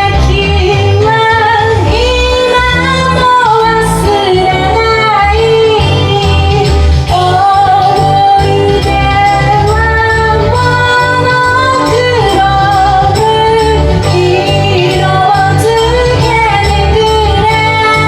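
A woman singing a 1980s Japanese pop song over a karaoke backing track with a steady beat.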